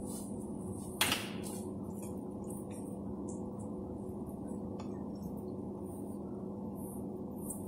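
Metal spoon clicking against a stainless steel bowl while scooping soft cat food, with one sharper clink about a second in, over a steady low hum.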